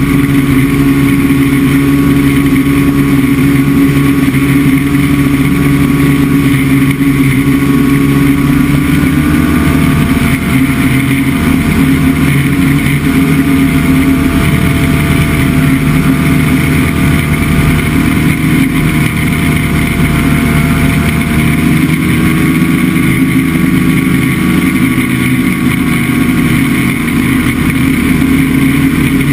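Chinook Plus 2 ultralight's engine and propeller running in flight, a loud steady drone. The engine is throttled back about a third of the way in and brought up again some seconds later.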